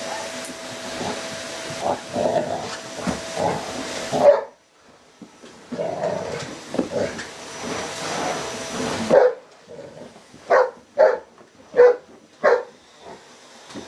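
Dogue de Bordeaux barking at a running vacuum cleaner. The vacuum's hiss stops suddenly about four seconds in, comes back, and stops again about nine seconds in. A run of loud single barks follows.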